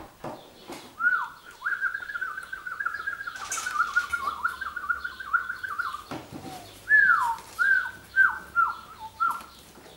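Goldendoodle puppy whining: a long, wavering high whine, then about five short whines that each drop in pitch.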